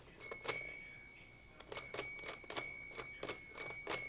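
Battery-operated vintage Handi-Craft toy telephone ringing its bell: sharp strikes about three times a second over a steady high ring, with a short pause about a second in.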